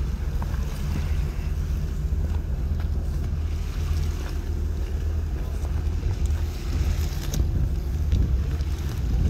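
Steady wind rumble on the microphone aboard a moving boat, with water rushing along the hull.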